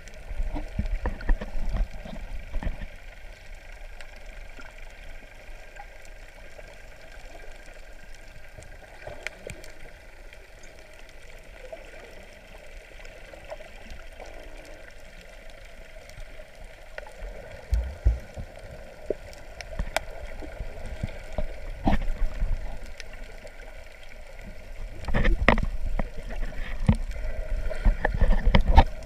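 Underwater sound through a submerged action camera's housing: water gurgling and sloshing around the camera, with a steady faint hum and scattered knocks and bumps, busiest near the end.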